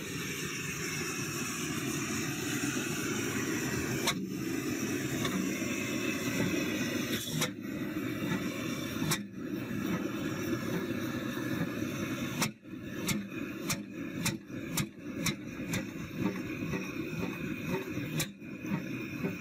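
Antique flywheel stationary engines running with a steady low rumble. From about two-thirds of the way through, one runs with uneven, separate sharp beats.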